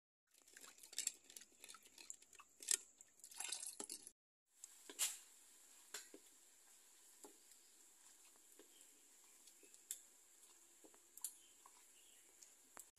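A ladle stirring and scraping in a pot of bubbling syrup over a wood fire. A dense run of small clicks and crackles fills the first four seconds; after that it is quieter, with scattered sharp clicks.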